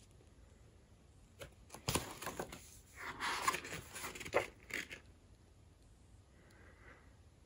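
Paper pages of a small softcover artbook being turned by hand: a few brief rustles and page flaps between about one and a half and five seconds in.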